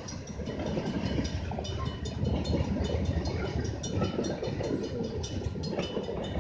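Freight train cars, covered hoppers and tank cars, rolling past a grade crossing: a steady rumble with wheels clicking over the rail joints.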